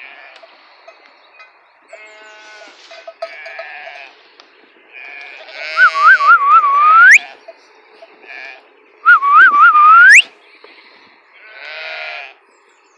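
Flock of sheep and lambs bleating, with someone whistling twice, a few seconds apart. Each whistle is a short warbling trill that ends in a steep rising glide, and the whistles are the loudest sounds.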